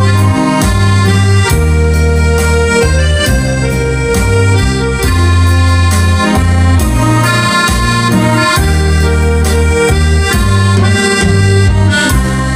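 Instrumental break of a Thai luk thung song played through a bandpass subwoofer box loaded with 4.5-inch Apple drivers: a lead melody over a heavy bass line that steps from note to note.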